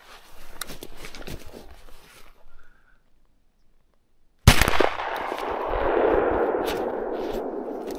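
Rustling and small knocks of movement through dry grass, then a pause, and a little past halfway a single loud shotgun shot. A long rushing noise follows the shot and slowly fades.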